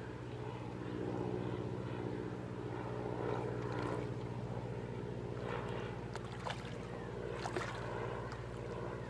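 An engine running steadily with a low, even hum. In the second half, a few sharp splashes and clicks sound over it.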